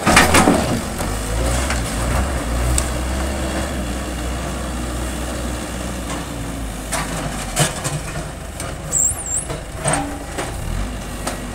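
Diesel engine of a JCB backhoe loader running steadily as its bucket knocks down a stone wall, with sharp cracks and knocks of breaking masonry several times.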